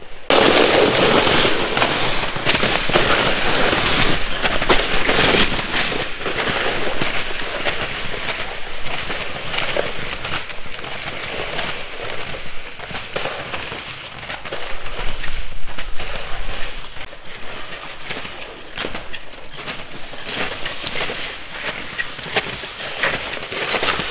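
Snowshoes crunching through crusted snow step after step, with a plastic pulk sled scraping along the snow behind.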